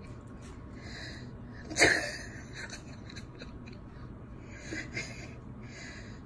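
Aluminium foil over a cat's food plate crinkling and rustling as a cat eats from it, with one sharp, louder crackle about two seconds in and softer rustles after.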